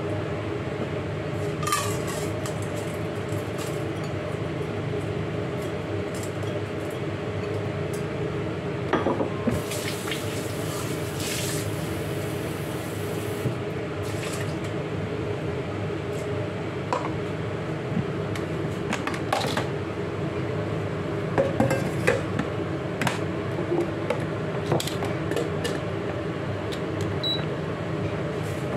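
Kitchen handling: a metal cooking pot and dishes knocking and clattering on the counter, over a steady low hum. For a few seconds near the middle there is a rush of pouring or running water.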